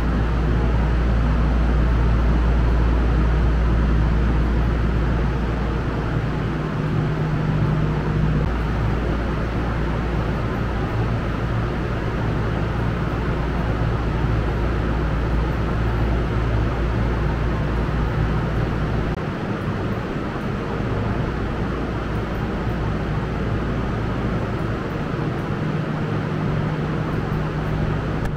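Steady low rumble and hum of ambient noise in a Shonan Monorail station, with no one speaking; the deepest rumble eases about two-thirds of the way through.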